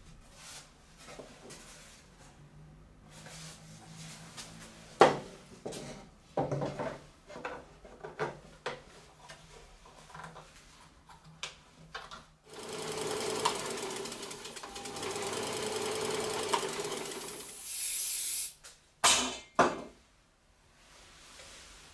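Knocks and clicks of plywood panels and plastic star knobs being handled and fitted. Then comes a steady buzzing, hissing run of about six seconds, followed by two short bursts of hiss from an aerosol spray can.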